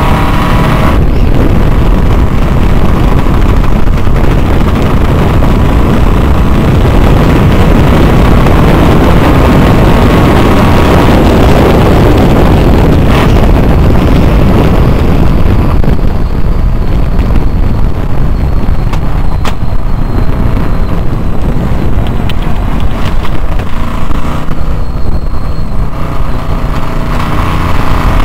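Supercharged Studebaker 289 V8 running hard under load, heard from the cockpit. About halfway through the note drops and from near the end it turns uneven, fitting the breaking up in the turns that the owner puts down to the Carter AFB carburetor.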